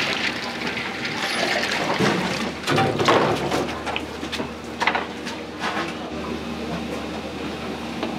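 Commercial kitchen at work: a steady machine hum under a noisy haze, with scattered knocks and clatter of cookware and dishes.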